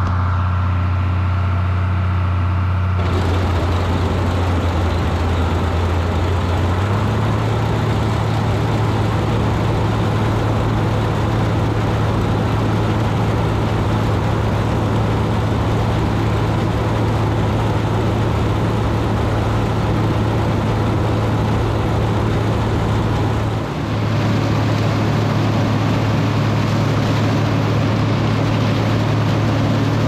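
International 686 tractor running steadily with its mounted New Idea corn picker working through standing corn: a constant engine hum under a dense clatter of the picker and stalks feeding through. The engine note and noise change abruptly a few times.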